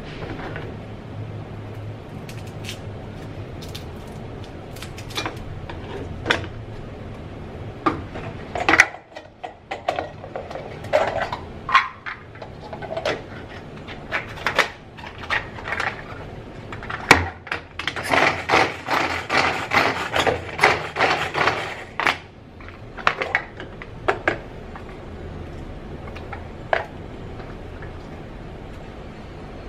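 Plastic containers, lids and kitchen utensils clicking and clattering as they are handled on a counter, with a quick run of rattling clicks for a few seconds past the middle.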